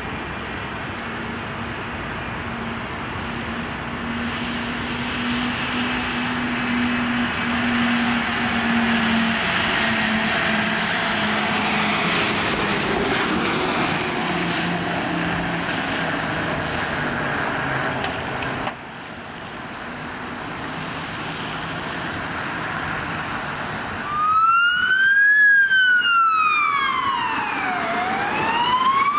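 Diesel engine and road noise of a truck-based ambulance driving past on blue lights. After a cut, an ambulance siren starts a few seconds from the end: a slow wail rising and falling in long sweeps, the loudest sound.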